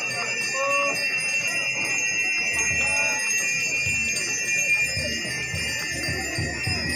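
Bells ringing on without a break, several steady high tones at once. A crowd's voices murmur underneath, with a few short calls.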